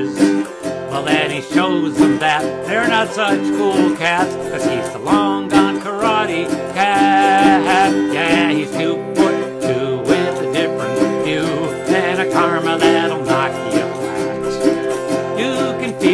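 Autoharp strummed in sustained chords, with a man's voice sliding up and down over it in wordless vocalizing.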